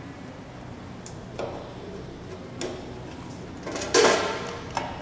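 A few short metallic clicks of a screwdriver working screws inside a bread maker's aluminium baking container. About four seconds in, a louder clatter with a short ring as the metal container is lifted free of the base plate.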